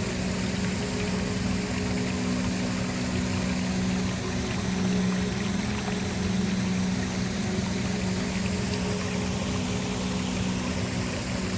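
Waterfall: a steady, unbroken rush of falling water, with a low, even hum held underneath it.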